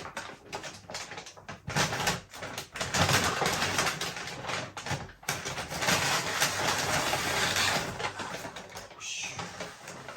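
Handling noises at a table: rustling and crinkling in two long stretches, with scattered clicks and knocks of containers and utensils.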